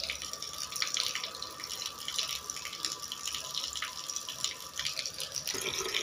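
Water running from a wall tap and splashing into a shallow concrete basin that is being filled, a steady pour with a fine, crackling splash.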